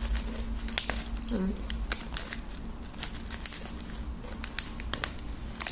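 Plastic snack-noodle packet crinkling and crackling as it is handled and folded, in scattered sharp crackles.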